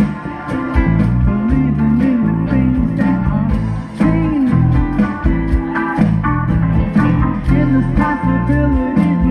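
Small band playing a blues number live, with electric bass, guitars and a gliding, sliding lead line over a steady bass groove.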